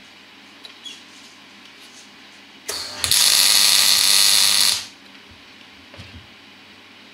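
Electric arc welding of the steel outrigger to the chassis rail: after a couple of sharp starts, a loud, steady hiss runs for about two seconds and cuts off. A few faint knocks come before and after it.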